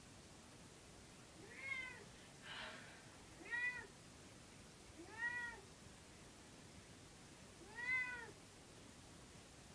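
A wet cat standing in a bathtub meows four times, a few seconds apart, each meow rising and then falling in pitch. These are distressed meows at being bathed and brushed.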